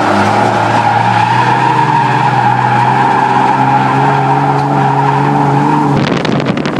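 BMW E36's engine held at a steady note through a drift, heard from inside the cabin, with tyres squealing over it. About six seconds in, the engine and tyre noise drop away suddenly and wind buffets the microphone.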